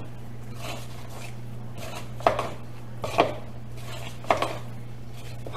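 Biscuit dough of flour and buttermilk being stirred in a mixing bowl, with soft strokes about once a second and three sharp knocks of the utensil against the bowl about two, three and four seconds in. The dough is being stirred until it sounds sticky, the sign that enough buttermilk has gone in. A steady low hum runs underneath.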